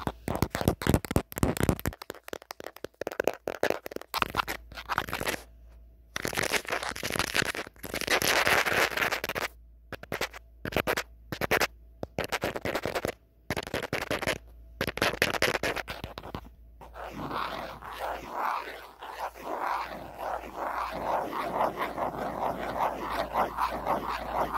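Natural fingernails tapping and scratching on the back of an old phone. Runs of quick taps alternate with stretches of scratching, and the scratching goes on steadily from about two-thirds of the way in.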